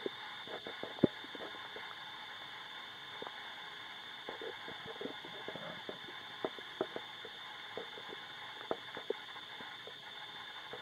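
Human stomach gurgling: short, irregular bubbly pops and squelches scattered throughout, with one louder pop about a second in, over a steady recording hiss with a faint high whine.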